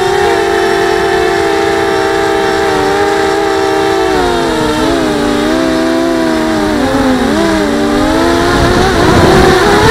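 The four brushless motors and propellers of a Coptergeist CGX250 mini quadcopter whining in flight, heard from its onboard camera. The pitch holds steady at first, then from about four seconds in the motors' pitches split apart and waver up and down as throttle changes, with a louder rushing noise near the end.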